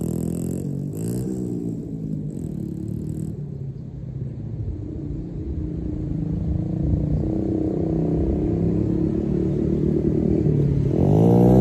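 Pit bike's small single-cylinder engine moving off and fading, its pitch rising and falling with the throttle, quietest about four seconds in. It then grows louder as the bike comes back, revving up and down near the end.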